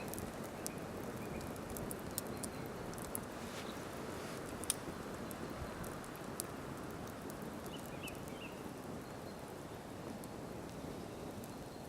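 Wood campfire burning: a steady hiss of flames with scattered sharp crackles and a few louder pops.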